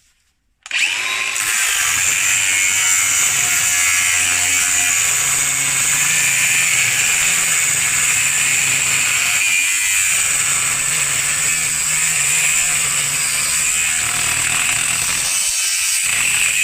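Angle grinder with a cutting disc starting up about a second in and cutting through a metal bracket, running loudly and steadily at full speed.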